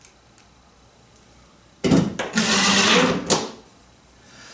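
Cordless impact driver setting a No. 6 bronze screw into quarter-inch plywood: one burst of about a second and a half, starting abruptly about two seconds in and stopping sharply.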